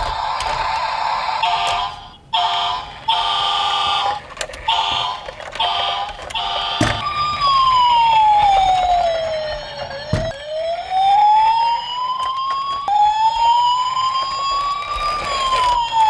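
Toystar toy fire engine's electronic sound module: chopped beeping tones, then a click and a slow wailing siren whose pitch falls and rises in sweeps of about three seconds.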